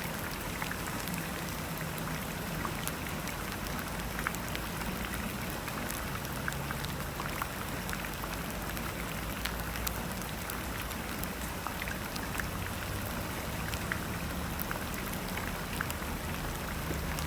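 Steady rain with scattered drop clicks over a faint low hum.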